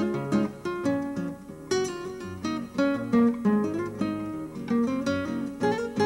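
Background music on acoustic guitar, quick plucked notes mixed with strums.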